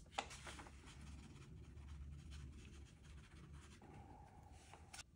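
Faint rustling of a small plastic packet of rock-tumbler abrasive grit being shaken out onto a glass plate, with light scratchy ticks as the grains land, and a soft click near the end.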